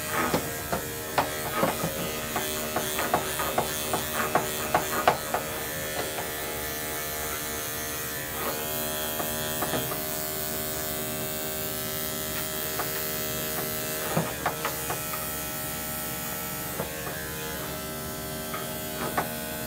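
Electric dog-grooming clippers running with a steady buzzing hum, with irregular short clicks and taps over it, thickest in the first few seconds and again about halfway through.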